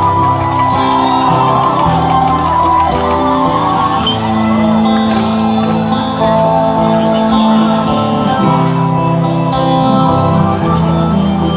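Live band playing a song loud through the PA, with singing and shouting over it.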